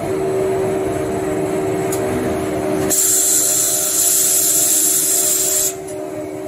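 Toilet paper rewinding line running at about 300 metres per minute, a steady machine hum of several level tones. About three seconds in, a loud high hiss joins it and cuts off suddenly near the end.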